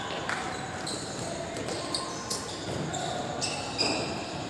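Indoor football game: shoes squeak sharply and repeatedly on the court floor, and the ball knocks and bounces, against players' voices echoing in a large hall. A cluster of squeaks comes near the end.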